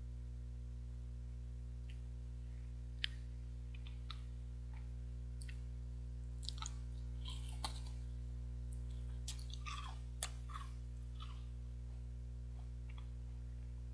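Eating and drinking close to the microphone: sipping hot coffee from a mug and biting and chewing a chocolate bar, heard as scattered small clicks, crackles and slurps that are busiest in the middle. A steady low electrical hum runs underneath.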